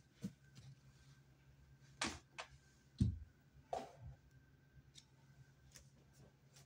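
Handling noise from a handheld phone being moved around a room: a few scattered knocks and rustles, the loudest a low thump about three seconds in, over a faint steady hum.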